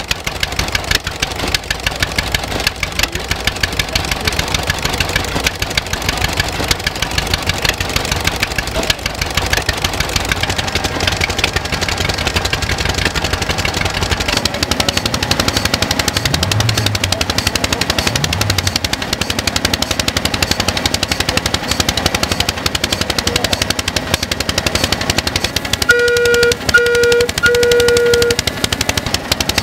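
Small single-cylinder stationary engine running, its exhaust a fast, even patter of sharp beats. Near the end come three short toots in quick succession.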